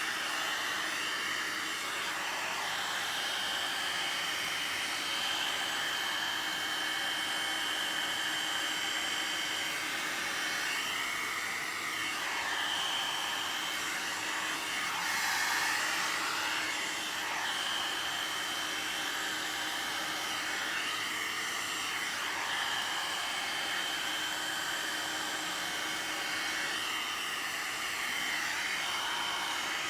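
WAER Professionals one-step hot-air blow dryer brush running on its high setting: a steady blowing rush with a high whine that wavers and shifts in tone now and then as it is worked through the hair.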